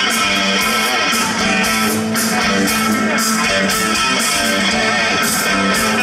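Live rock band playing: electric guitar played through a Marshall amp, with drums and cymbals keeping a steady beat.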